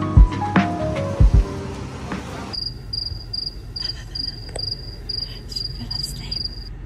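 Background music for the first couple of seconds, then a cricket chirping steadily, about five high chirps a second, over the low rumble of a car cabin; the chirping cuts off suddenly near the end.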